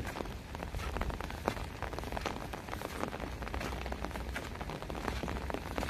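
Rain falling steadily, with many separate drops tapping close by, over a low rumble.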